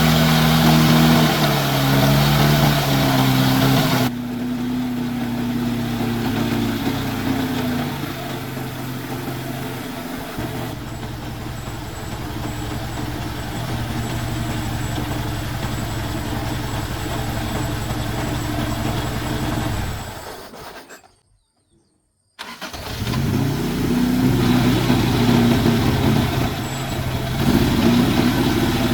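Old Jeep's engine running: revved with shifting pitch for the first few seconds, then running steadily. The sound drops out completely for about a second and a half about two-thirds through, then the engine is heard running again.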